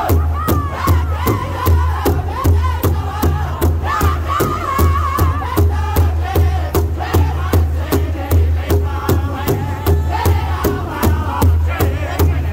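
Powwow drum group singing in high, wavering voices while striking a large shared hide drum together in a steady, even beat.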